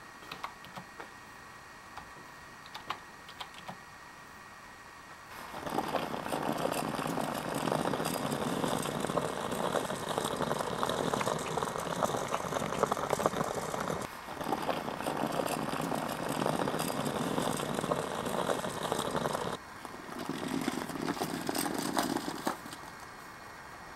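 Keys clicking as someone types on a computer keyboard, then about five seconds in a rolling suitcase's small wheels rumble loudly over a gritty sidewalk, with two short breaks.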